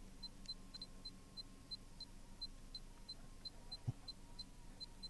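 Faint, evenly spaced short high electronic pips, about three a second, with one soft knock nearly four seconds in.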